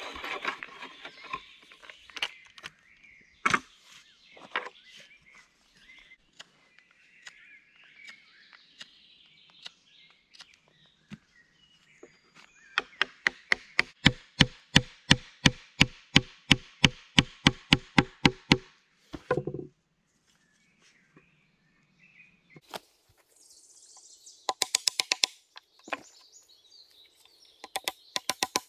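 Hammer driving a wooden peg into a hole bored in a dry oak log: a run of evenly spaced loud blows, about five a second, lasting about six seconds in the middle. Scattered single knocks and birds chirping come before it, and shorter quick runs of blows come near the end.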